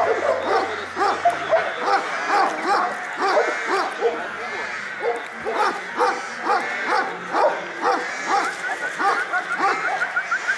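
Several large Šarplaninac shepherd dogs barking repeatedly, their barks overlapping one another.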